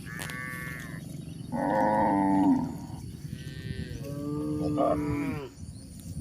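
Cows mooing: about four drawn-out calls one after another, the loudest about two seconds in.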